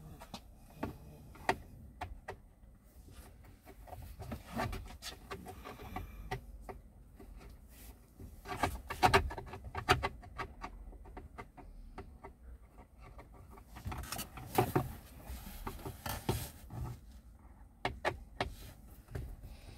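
A hand-held Torx driver undoing the two T20 bolts under a plastic steering-column cowling: irregular clicks, scrapes and rubbing of tool and fingers against plastic, busiest about nine seconds in and again around fifteen seconds.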